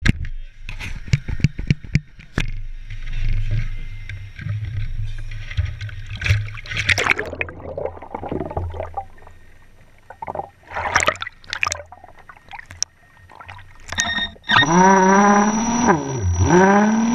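Underwater sound in shallow sea water: scattered clicks, knocks and water movement against the camera. From about two-thirds of the way in, a motor-like hum with many overtones comes in; its pitch falls, dips sharply and rises again.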